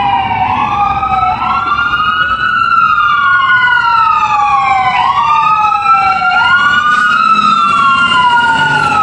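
Fire engine siren wailing: each wail climbs quickly, then slides slowly back down, over and over, with two wails overlapping out of step. A low engine rumble lies beneath.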